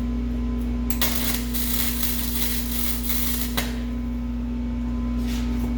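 Welding arc crackling for about two and a half seconds as a tack weld is laid on a steel exhaust pipe and flange, cutting off sharply. A steady electrical hum runs underneath.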